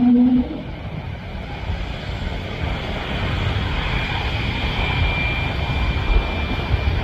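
Jet engines of an Embraer E2 prototype airliner during takeoff: a steady broad engine noise, strongest in the lows, with a thin high whine that comes in about four seconds in. A steady low hum stops about half a second in.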